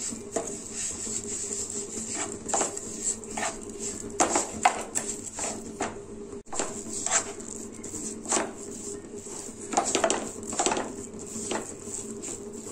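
Wooden spatula stirring and scraping a thick coconut, milk and sugar mixture around a non-stick pan, in a run of short, uneven strokes, over a steady low hum.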